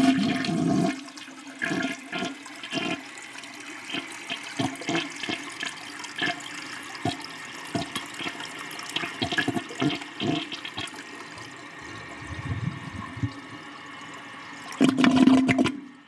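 Toilet flushing, slow to drain and fart-like: a loud rush of water, then a long run of irregular gurgling spurts. A second loud rush comes near the end and cuts off suddenly.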